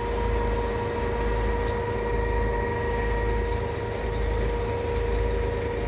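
Heavy diesel engine of a boom-type concrete pump truck running steadily, with a low rumble and a constant high whine over it.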